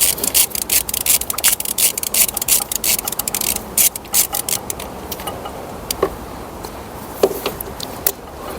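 Ratchet wrench clicking rapidly while a bolt on an engine earth cable is undone. The clicking stops about four seconds in, followed by a few light knocks of metal tools.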